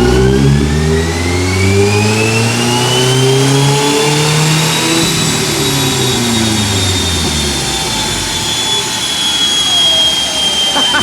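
Car engine making a wide-open-throttle pull on a chassis dyno: it revs up steadily for about five seconds with a high whine rising with it, then the revs fall away as the throttle is let off while the car was still pulling.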